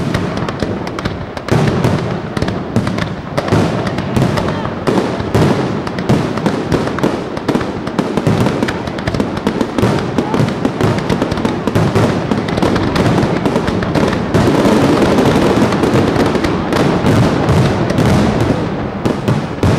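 Aerial fireworks display: a continuous, dense barrage of bangs and crackling bursts. It grows loudest and thickest about two thirds of the way in.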